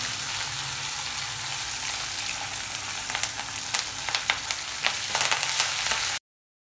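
Oil sizzling in a kadai as a tempering of dals, green chilli and ginger fries. About halfway in, sharp crackles and ladle clicks join as curry leaves go into the hot oil and are stirred. The sound cuts off abruptly just before the end.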